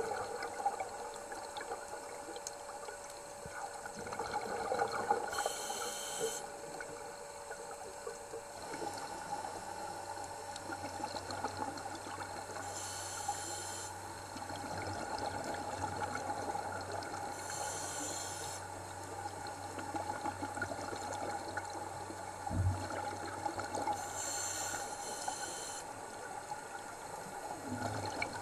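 Underwater sound of scuba diving: a steady bubbling water noise, broken by four short hisses several seconds apart from a diver's scuba regulator.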